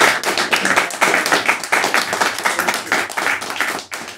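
Audience applause: many hands clapping in a dense, irregular patter that begins to die away near the end.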